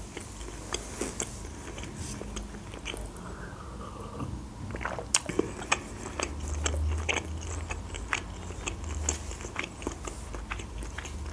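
A person chewing food with the mouth closed, close to the microphone: a steady run of small wet clicks and soft crunches.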